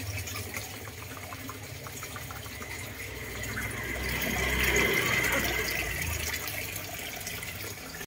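Steady rain falling and splashing, swelling louder for a couple of seconds near the middle.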